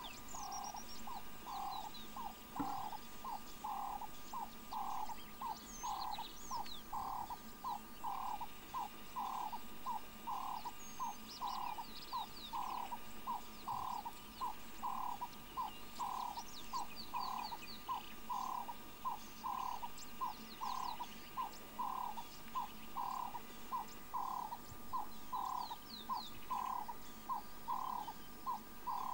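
Bush ambience: an animal call of short notes repeated evenly, roughly two a second and alternating stronger and weaker, with scattered short bird chirps and whistles above it.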